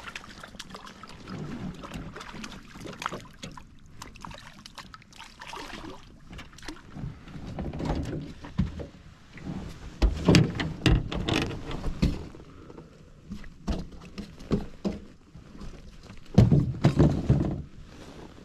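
Irregular knocks, clicks and rustling handling noise in a small fishing boat, with louder clusters of low thumps about ten seconds in and near the end.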